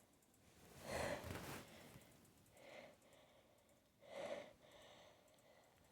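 A person in a sneezing fit breathing faintly between sneezes: three short, soft breaths about one, three and four seconds in.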